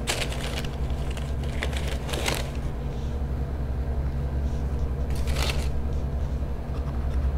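Tissue paper rustling and crinkling in several short bursts as hands dig through the wrapping in a shoe box, over a steady low hum.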